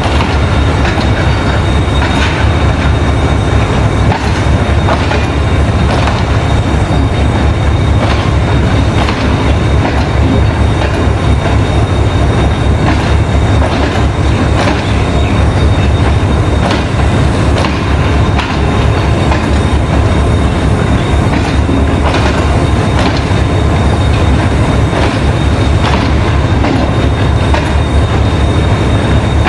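Empty Pakistan Railways passenger coaches rolling slowly past on their steel wheels. There is a steady heavy rumble with irregular clicks as the wheels cross rail joints, and a thin steady high tone above it.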